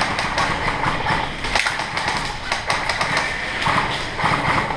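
Airsoft gunfire in close quarters: a fast, irregular clatter of sharp clicks and pops.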